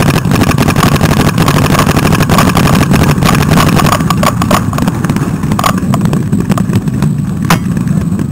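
Loud, steady low rumble with many sharp clicks and knocks: the microphone of a head-mounted camera being rubbed and buffeted by close, dark cloth or gear as the wearer moves behind cover.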